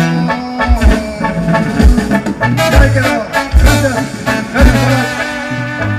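Live Mexican banda music: a sousaphone plays a bass line of held low notes under trombones and trumpet, with a deep bass drum stroke about once a second.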